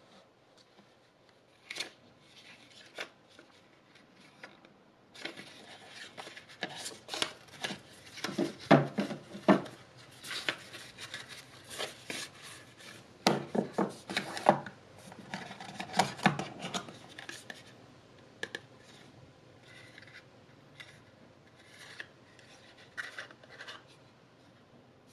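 Paper cards and white cardboard inserts from a phone box being handled: rubbing and sliding against each other, with sharp taps and knocks. The handling is busiest and loudest in the middle.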